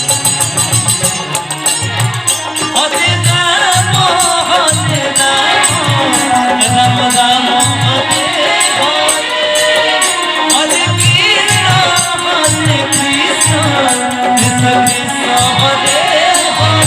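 Kirtan music: a steady low drum beat under jangling, shaken percussion. Voices join in singing about three seconds in.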